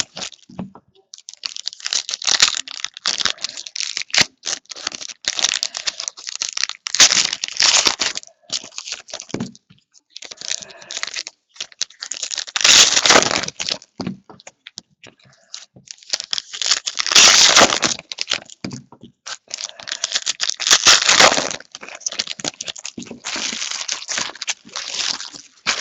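Trading-card pack wrappers being torn open and crumpled by hand, in repeated crinkling bursts with short pauses between, the loudest about halfway through and again a few seconds later.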